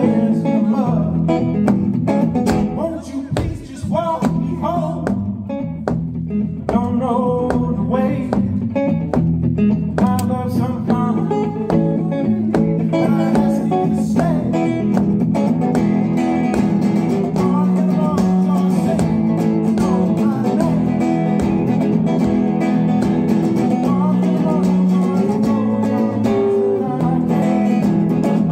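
Live blues-style band music: guitar over a steady drum beat, with a voice singing.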